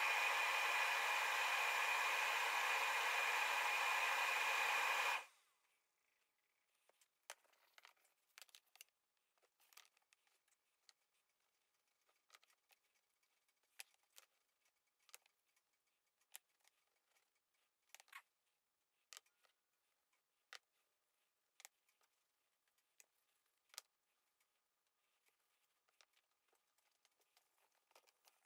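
A steady, loud hiss like a running fan or blower cuts off suddenly about five seconds in. After it come faint, sparse clicks and taps as small stained wood sample blocks are picked up and set down on a workbench.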